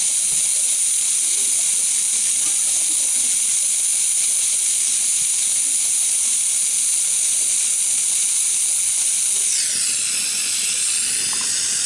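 A loud, steady hiss of pressurised gas escaping from a refrigeration line. Near the end it wavers in pitch, then cuts off abruptly.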